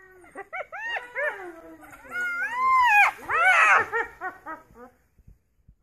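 High-pitched yelping and twittering calls from African wild dogs and a hyena in a standoff. First comes a quick run of short rising-and-falling calls, then one longer arched call about two seconds in, the loudest. A fast string of shorter calls follows and fades away.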